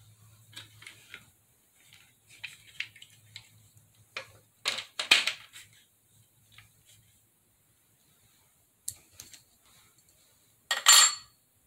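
Hard plastic legs and caster wheels of a hair dryer's five-legged rollabout base knocking and clicking as they are handled and fitted together, with louder clatters about five seconds in and again near the end.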